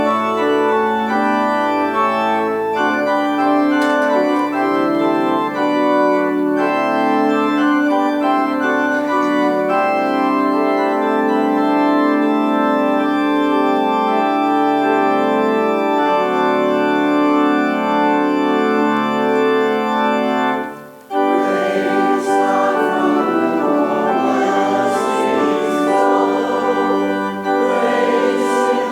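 Organ playing sustained chords. About 21 seconds in it pauses briefly and resumes with a busier, more ornamented passage.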